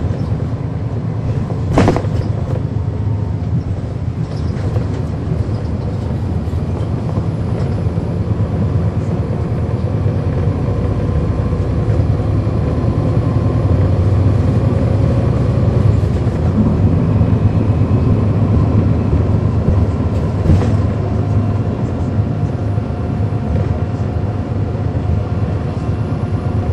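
Steady low drone of a 2010 NABI 40-SFW transit bus's Cummins ISL9 diesel engine, heard from inside the bus, swelling a little in the middle. A sharp click about two seconds in and another about twenty seconds in.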